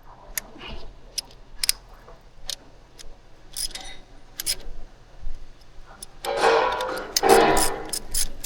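Irregular sharp clicks and taps of small engine parts and tools being handled during injector reassembly, with a louder stretch of scraping and handling noise about six seconds in.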